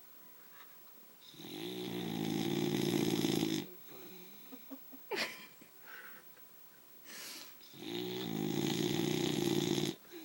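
Boxer dog snoring: two long, loud snores of about two seconds each, with brief quieter noises between them.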